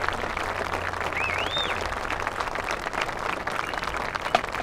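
Crowd applauding, a dense even clatter of clapping, with a short high call rising and falling about a second in.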